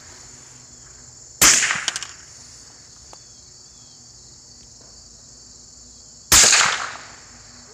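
Two rifle shots about five seconds apart, each a sharp crack trailing off over about half a second, over a steady high buzz of insects.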